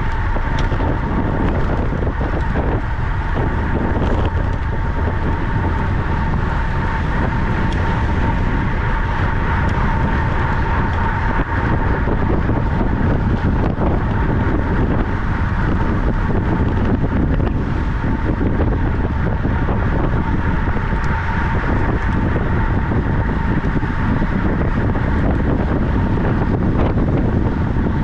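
Wind rushing over the microphone of a camera carried on a bicycle ridden at speed around a cycle track, a steady loud rush with a thin steady hum running through it.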